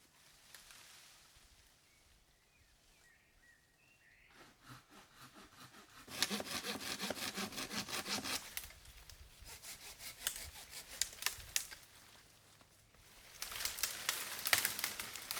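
Hand saw cutting wood in quick back-and-forth strokes. There is a loud spell of about two seconds midway and another near the end, with quieter scraping strokes between.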